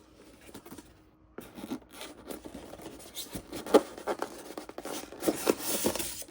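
Scratching and rustling of packaging being handled, with many light clicks and knocks. It starts about a second and a half in and stops abruptly at the end.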